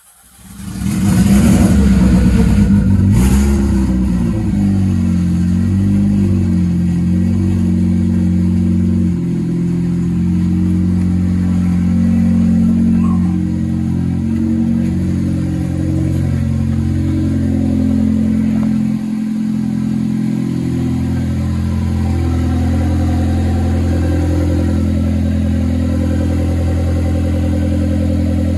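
Turbocharged 2.5-litre four-cylinder engine of a 2004 Nissan Sentra SE-R Spec V catching suddenly about half a second in on its first start-up after a turbo install. It flares up loud, then runs on at an uneven idle that shifts pitch and dips briefly a couple of times. It is running with no exhaust fitted yet.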